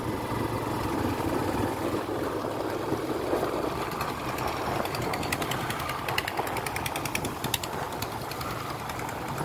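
Motorcycle engine running at a steady cruise, mixed with wind and road noise from the concrete road. A run of light, quick ticking or rattling comes through about halfway in.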